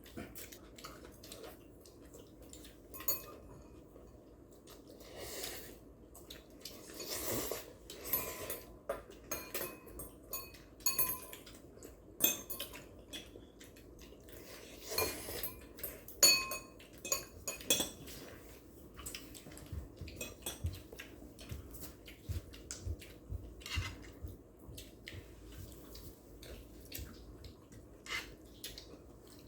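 Cutlery clinking and scraping against dishes while a family eats noodles and fried eggs: irregular, scattered clinks and taps with no steady rhythm.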